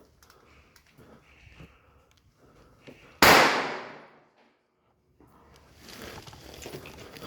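A single loud bang about three seconds in, dying away over about a second, with faint clicks and rustling before it.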